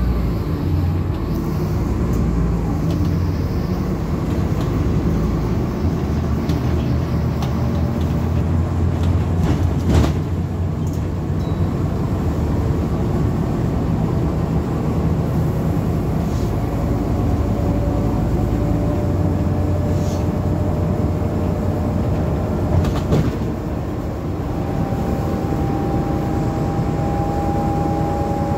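Interior sound of a Scania N230UD double-decker bus on the move, heard from the upper deck: the Scania five-cylinder diesel runs with a steady low hum, and the body rattles and knocks now and then. Near the end a higher whine rises slowly in pitch as the bus pulls away.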